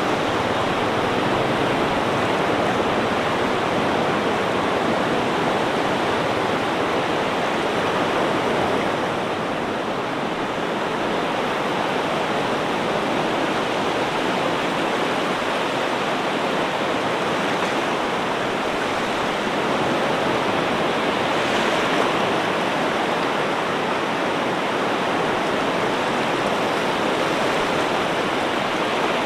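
Ocean surf: a steady, dense wash of breaking waves with little rise and fall.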